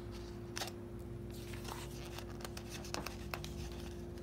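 Pages of a hardcover book being turned by hand: paper rustling and scraping, with several short sharp clicks, over a steady low background hum.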